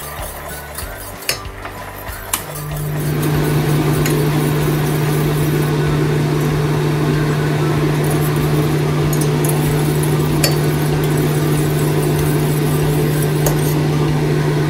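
A steady low electrical hum, typical of an induction hob and its steel pot under high power, comes on about two and a half seconds in and holds level. A wire whisk clinks a few times against a stainless steel pot of heating cream, mostly before the hum starts.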